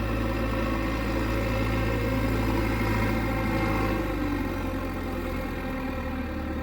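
Heavy earthmoving machine's diesel engine running steadily at low revs, a constant low hum that eases slightly about four seconds in.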